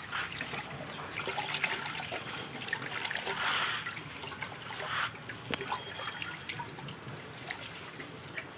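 Hands washing guava leaves in a pot of water: water sloshing and trickling with small splashes and clicks, loudest about three and a half seconds in.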